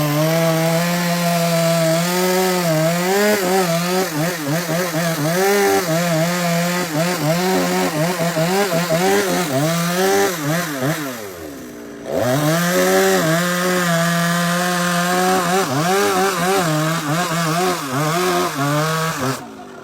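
Chainsaw cutting wood under load, its engine pitch wavering as the chain bogs and recovers. About eleven seconds in the revs fall away for a moment, then climb again as it cuts on, and the saw stops near the end.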